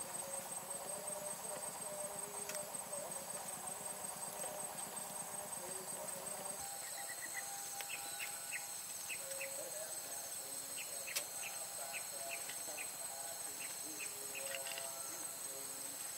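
Insects chirring steadily at a high pitch. Short, repeated bird chirps join in from about seven seconds in, with a single click a few seconds later.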